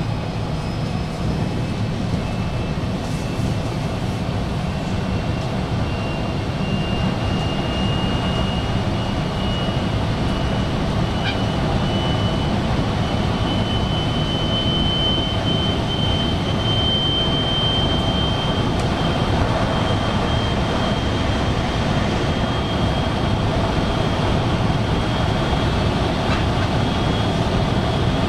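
Electric Special Rapid Service train running, heard from inside a car: a steady rumble of wheels on rail with a thin high whine that slowly rises in pitch, slightly louder as the train gathers speed.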